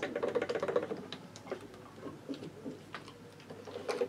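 A short plastic squeak as a funnel is worked out of the neck of a two-stroke oil bottle, then light plastic clicks and rattles as the bottle's cap is handled.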